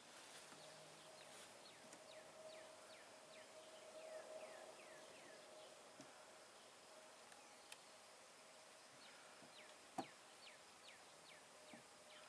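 Near silence: a faint steady hum of honey bees around an opened hive, with faint runs of short falling chirps repeating a few times a second, and one sharp tap about ten seconds in.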